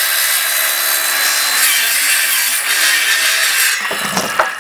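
Ryobi circular saw running at speed, its blade cutting through a wooden board. Near the end the sound changes as the blade breaks through and the offcut falls away, with one sharp knock.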